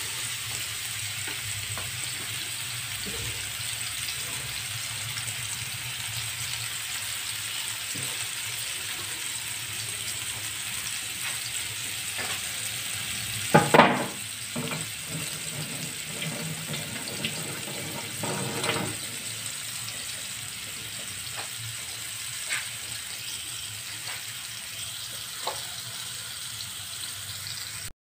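Spice-marinated chicken pieces sizzling steadily in a little olive oil in a nonstick frying pan, with scattered clicks and a louder knock about fourteen seconds in.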